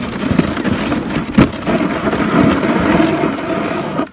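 Dog sled moving over snow: the runners scrape and crunch along the snow while the sled frame rattles and knocks, a dense noise with many small clicks that cuts off suddenly near the end.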